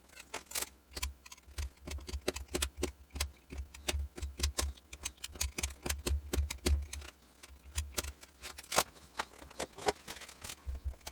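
Irregular clicks and light taps, several a second, over low thuds, like small objects or a microphone being handled.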